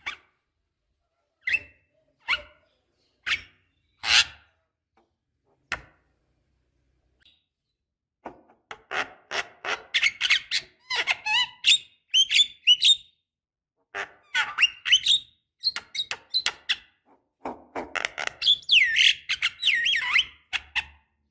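Javan myna calling: a few sharp single calls in the first six seconds, then, from about eight seconds in, fast runs of squeaky chattering notes and whistled glides.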